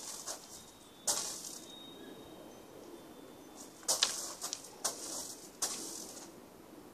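Grass blades rustling against the microphone in short, hissy bursts: one about a second in and a quick cluster from about four to six seconds in.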